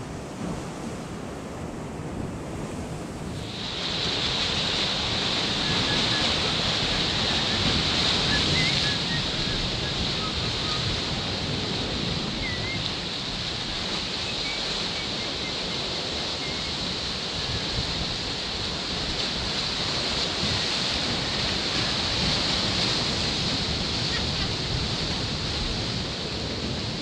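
Ocean surf breaking and washing over rocks, with wind buffeting the microphone. A steady higher hiss joins in about three and a half seconds in and holds.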